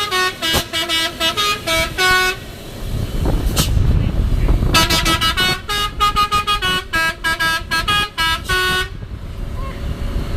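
Telolet musical horn playing quick runs of short notes at changing pitches, in two bursts, with a low vehicle engine rumble between them and after them.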